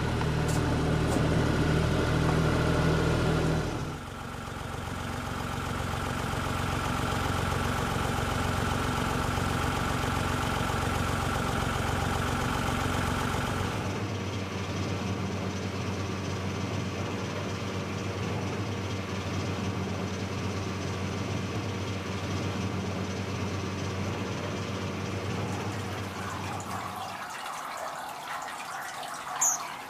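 Tractor engine running, then a steady mechanical hum from a Vaslin horizontal grape press with a slatted wooden cage.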